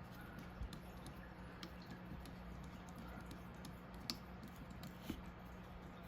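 A few faint, sharp clicks and taps of a small screwdriver driving a screw through a folding knife's pocket clip.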